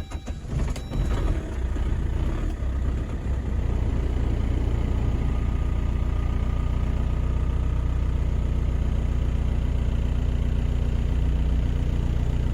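2002 Saab 9-3 2.2 TiD four-cylinder turbodiesel catching at the end of a long crank on its first start after standing four months. It runs unevenly for the first few seconds, then settles into a steady idle.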